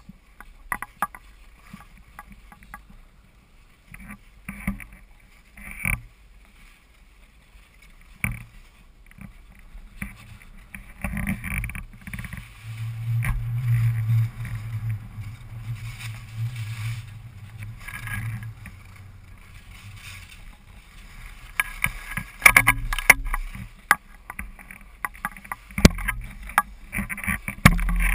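Skis scraping and swishing over groomed snow during a run, with frequent sharp clicks and knocks that grow busier and louder near the end. A low steady rumble rises through the middle of the run.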